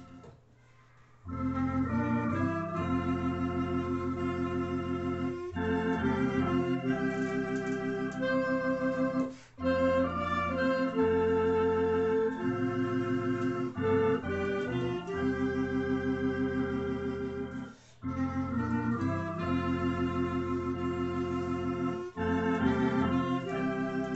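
Tokai T1 electronic organ and clarinet playing a hymn together in a stately 9/8 time: held organ chords over a bass line, with the clarinet on the melody. It starts after a short pause about a second in, and the phrases break briefly twice more along the way.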